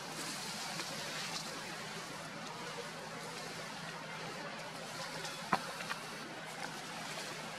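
Steady outdoor background hiss with a few faint clicks and rustles, and one sharp click about five and a half seconds in.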